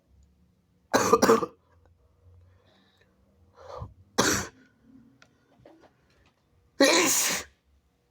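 A person stifling sneezes: three short, forceful bursts about three seconds apart. The first is a double, and the second comes just after a smaller sound.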